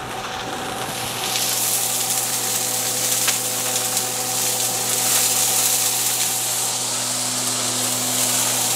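Cauliflower rice sizzling as it goes into a hot wok, a steady hiss that swells about a second in and holds. Under it runs the steady hum of a range exhaust fan.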